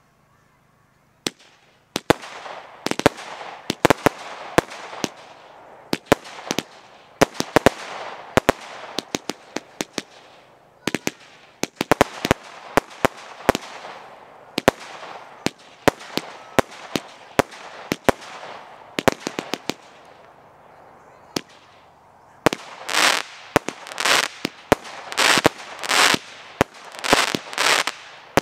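Lesli Boa Constrictor firework cake firing: after a short lull, a long rapid string of sharp bangs as shells burst overhead, with crackle between them. Near the end it changes to a run of loud crackling bursts, about two a second.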